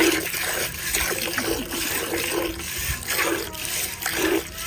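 Hand milking: streams of milk squirt into frothy milk in a metal bucket, in repeated surges about twice a second.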